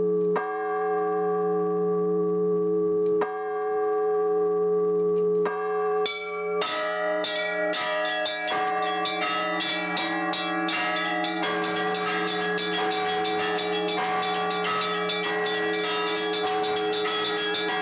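Church bells ringing: a few slow single strokes that ring on, then from about six seconds in several bells struck in quick succession together, a dense, continuous peal.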